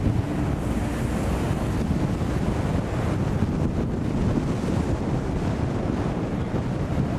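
Steady road and wind noise from a moving car, with wind buffeting the microphone.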